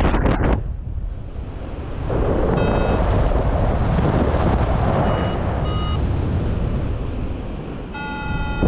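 Airflow buffeting the microphone of a paraglider in flight, with a few short electronic beeps from an XCTracer variometer and a longer beep near the end, the vario's tone for rising air.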